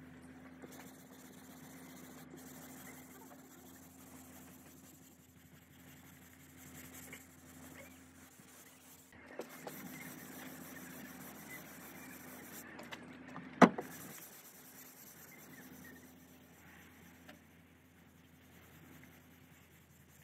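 Hand sanding of body filler on a car door panel with a small sanding block: a dry, scratchy rubbing that comes and goes with the strokes, livelier in the second half. A single sharp click about 13 s in is the loudest sound, over a faint steady hum.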